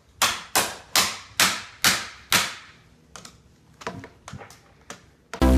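A series of six sharp impacts about half a second apart, each ringing briefly, then a few fainter clicks. Electronic dance music starts just before the end.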